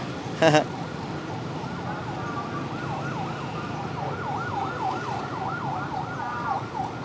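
Emergency vehicle siren going by, its tone rising and falling slowly at first and then switching to a fast yelp of about four sweeps a second, over a low hum of road traffic.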